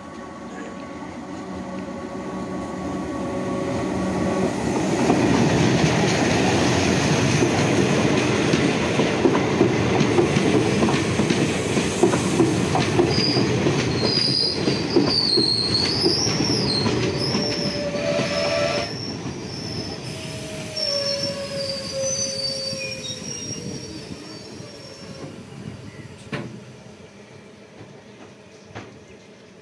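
A passenger train runs past close by on the adjacent track: the rumble and clatter of its wheels builds over the first few seconds, stays loud, and carries a high, wavering wheel squeal through the middle, then fades as the last coaches go by.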